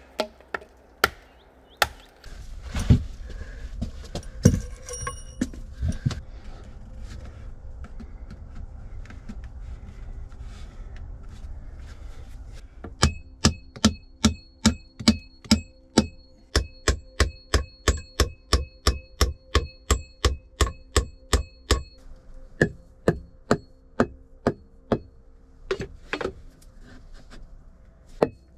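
Hammering on log timbers: a few single knocks at first, then about halfway a fast, even run of strikes, about three a second, each with a faint metallic ring, thinning to scattered blows near the end.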